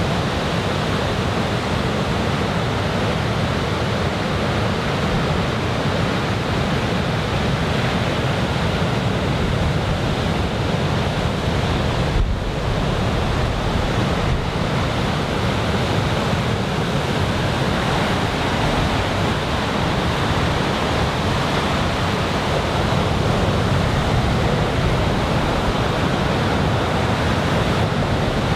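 Surf from a large typhoon swell breaking along the beach: a steady, loud wash of waves, with wind buffeting the microphone.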